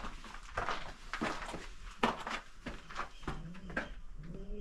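Footsteps on a gravel and stone floor, then a pigeon cooing from about three seconds in, its low calls repeating.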